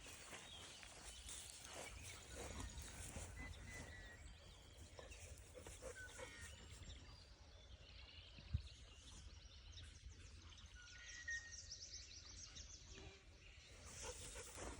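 Faint open-air ambience: a low rumble on the microphone, a few short high bird chirps, and a rapid faint high ticking late on. A single sharp knock sounds about halfway through.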